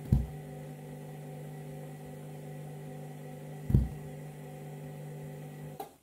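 Candy front-loading washing machine running a wash on its bleaching cycle: a steady motor hum as the drum turns, with two dull thumps, one right at the start and another nearly four seconds in.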